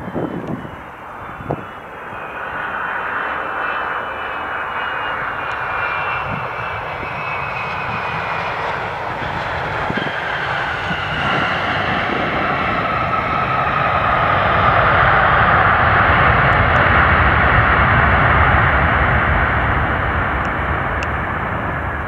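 Delta Boeing 757-200 landing: the jet engines' whine glides down in pitch over a steady roar on approach, then the roar swells to its loudest after touchdown as the airliner rolls out on the runway.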